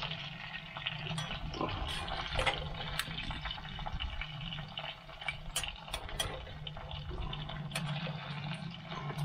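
Chicken nuggets sizzling in hot fat in a mild steel skillet, a steady hiss scattered with sharp crackles and pops, while a slotted metal spatula stirs and turns them in the pan.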